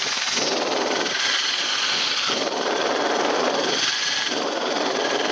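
Rescue helicopter hovering, heard from its open cabin doorway: a steady, loud rotor and engine noise with a thin high whine, swelling and easing every second or two.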